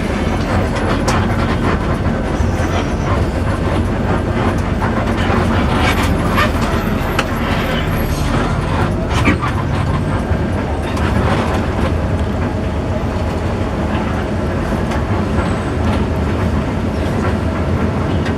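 Steady low drone and rumble inside an intercity bus cabin on the move, with frequent small rattles and clicks from the bodywork and fittings.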